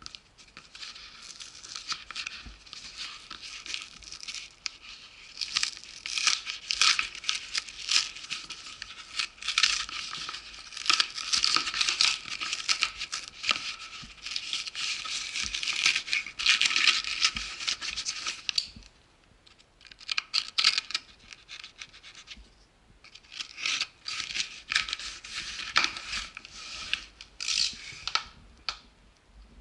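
Packing tape and cardboard being ripped and scraped off a cardboard shipping box in a long run of rasping tears. It pauses for a few seconds about two-thirds of the way through, then the tearing starts again.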